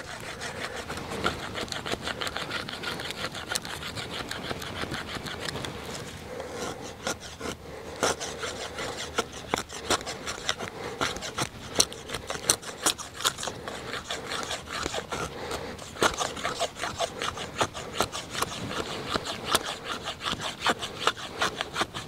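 A stick of wood being drawn again and again across a fixed knife blade, shaving feather-stick curls, heard as a long run of short, rasping scrapes. Few curls are coming off and the work is slow.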